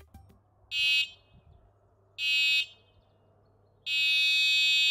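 The KuKirin G2 Max e-scooter's electric horn sounding pretty loud and high-pitched: two short beeps about a second and a half apart, then a longer held blast starting near the end.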